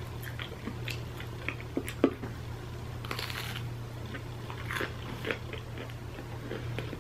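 Biting into and chewing a crunchy breaded, cheese-filled Cool Ranch Doritos Loaded snack: scattered crisp crunches over quieter chewing.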